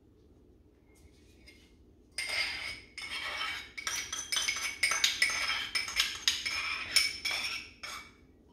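Metal spoon scraping and tapping yoghurt out of a small terracotta ramekin into a ceramic mixing bowl: a quick run of ringing clinks and scrapes that starts about two seconds in and goes on for about six seconds.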